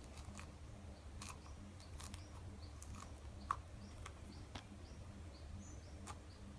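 Hands peeling an orange: soft crackles and tears of the rind and pith, with a sharper click about three and a half seconds in. Faint high chirps recur throughout over a low steady hum.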